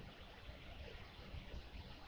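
Faint, steady background noise: an even hiss over a low rumble, with no distinct events.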